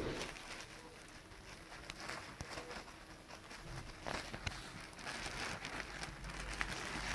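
Puppies scrambling on a dog bed wrapped in clear plastic: irregular crinkling and rustling of the plastic with light scratches and taps of paws.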